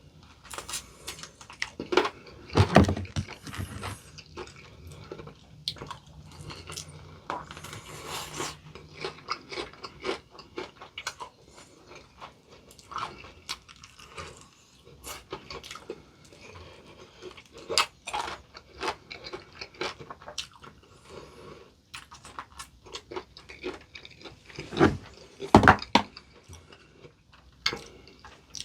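Close-up chewing and crunching of crispy potato-coated fried chicken: irregular crisp crunches throughout, with a few louder bites about two seconds in and near the end.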